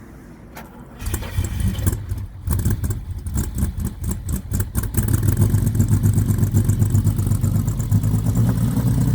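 1982 Lamborghini Countach 5000 S's 4.75-litre V12 catching about a second in and running unevenly, then settling into a louder, steadier rough idle from about halfway. The hard start and rough idle are the signs of an engine due for a tune-up, with combustion chamber deposits suspected.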